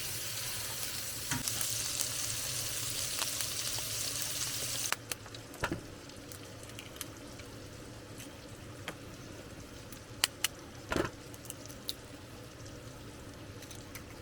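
Chorizo sizzling in a cast iron skillet. The hiss cuts off abruptly about five seconds in, leaving a quieter stretch with scattered clicks and taps of a utensil against the pan.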